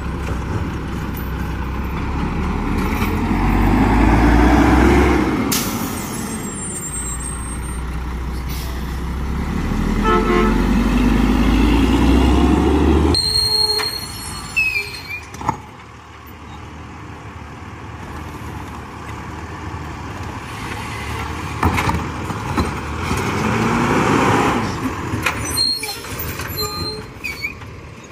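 Diesel engines of automated side-loader garbage trucks running as they move along the curb, the noise swelling and fading twice in the first half. About halfway the sound drops to a quieter engine run with a brief air-brake hiss, then swells again near the end as the next truck pulls up.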